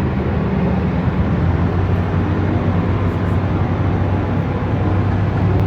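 A car engine running at a steady speed, a loud, even hum with a faint wash of noise over it.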